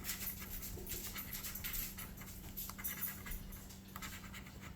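Scratch-off lottery ticket being scraped, a run of quick, uneven scratching strokes across the latex coating.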